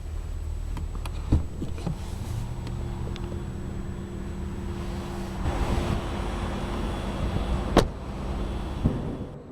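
A car's steady low running hum with handling knocks and clicks of the body; the sharpest click comes near the end.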